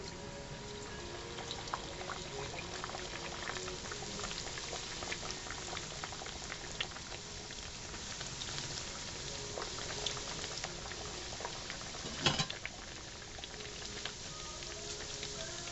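Squares of sopapilla dough deep-frying in hot oil in a stainless steel skillet: a steady bubbling sizzle with scattered small crackles. One brief louder burst of crackling comes about twelve seconds in.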